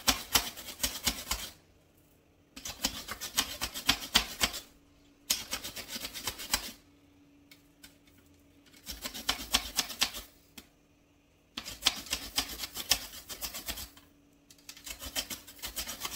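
Celery stalk being grated very finely on a hand grater: runs of quick rasping strokes, each run one to two seconds long, with short pauses between them.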